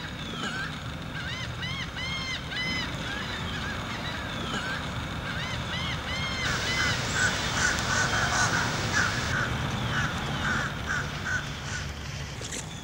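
Birds calling: a series of repeated arched calls, then from about six seconds in a louder, denser stretch of short chattering calls, over a steady low rumble.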